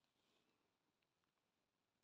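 Near silence: room tone, with a couple of very faint ticks about a second in.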